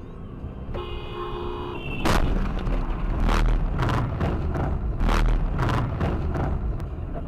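A steady horn tone for about a second, then a run of loud bangs and thumps, a few a second, over a heavy low rumble: a vehicle crash with repeated impacts.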